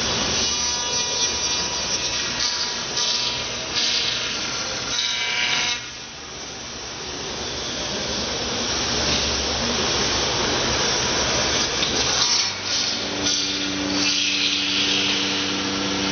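CNC machine running and cutting material, a loud continuous tool noise that briefly drops about six seconds in and takes on a steady pitched hum from about twelve seconds in.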